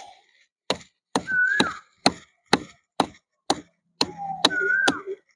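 Steady chopping strikes into babool (acacia) bark, about two hits a second, as the bark is hacked off the tree to be stripped. A short falling whistle-like call recurs between the strikes.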